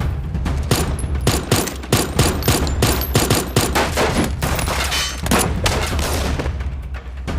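Gunfire in a shootout: many shots in quick, irregular succession, thinning out near the end, over a steady low rumble.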